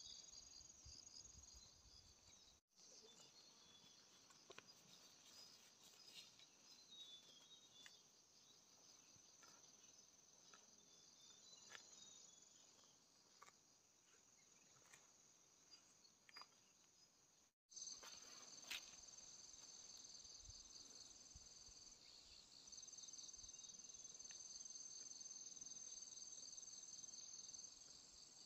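Faint insects chirring in a steady, high continuous drone with a pulsing trill beneath it. It drops out briefly twice and is louder over the last ten seconds.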